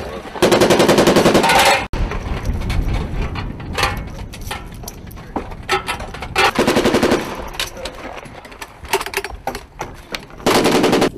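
M240B 7.62 mm belt-fed machine guns firing in bursts of rapid, evenly spaced shots: a long burst about half a second in, a shorter one around six and a half seconds, and another near the end, with fainter shots in between.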